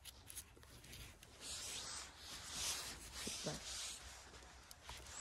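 A small knife scraping and trimming a freshly picked mushroom's stem: a soft rasping that swells for a couple of seconds in the middle.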